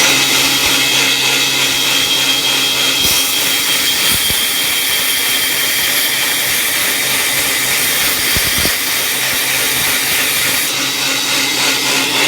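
Homemade 2x72 belt grinder running, really loud, its motor driven by a VFD, with a steady whine. From about three seconds in until near eleven seconds, a harsher grinding hiss is added as the abrasive belt grinds the corner of a quarter-inch workpiece.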